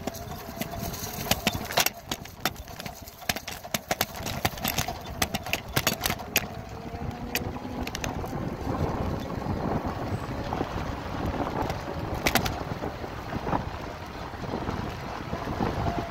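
Bicycle rattling over bumpy dry-grass ground, with many sharp knocks and clatters in the first half, then a steadier rolling rumble with wind on the microphone.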